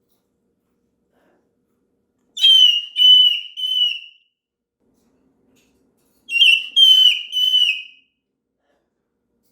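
Moluccan cockatoo screaming: two bouts of three loud, shrill calls each, about four seconds apart. The uploader puts this noisiness down to the bird being overtired.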